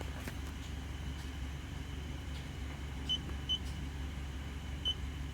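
Hyundai Matrix 1.6 engine idling steadily as a low hum, its cylinder 2 misfire corrected. Three short high beeps sound about three, three and a half and five seconds in.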